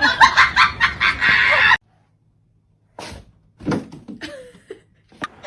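Poultry calling in quick, repeated notes that cut off abruptly, then after a second of silence a few scattered calls, one falling in pitch, with some light knocks.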